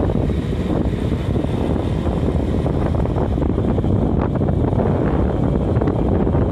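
Steady wind rush on the microphone of a moving vehicle, with engine and road noise underneath.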